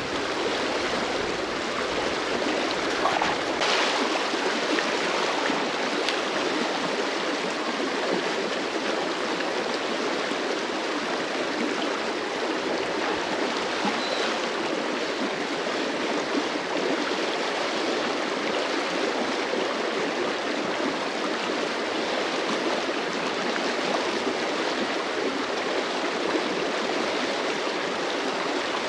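Shallow river water running steadily over a riffle.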